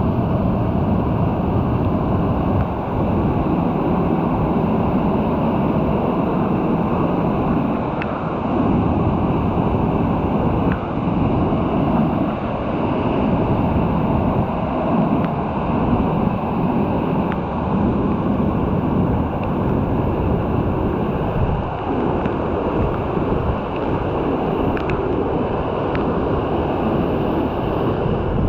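Waterfall in heavy flow, a steady dense rush of falling water.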